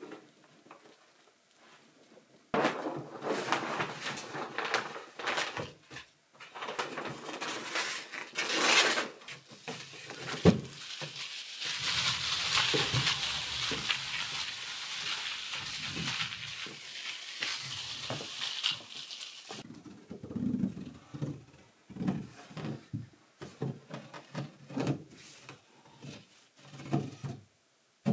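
Rustling and handling noise from working with a plastic vapour-barrier sheet, starting about two and a half seconds in. There is a sharp click about ten seconds in, then a steady high hiss for about eight seconds, then scattered knocks and rustles.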